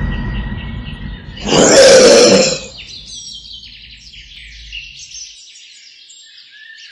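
A tiger's growling roar about a second and a half in, lasting about a second, followed by quiet birdsong chirping.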